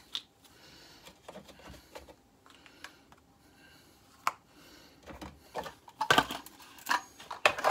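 Hard clicks and knocks from tools and parts being handled at a small metal lathe that is not running: a few scattered ones, then a quick run of clatter near the end.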